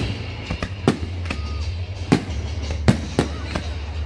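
Aerial firework shells bursting: a string of sharp bangs, the loudest roughly a second apart, over a steady low rumble.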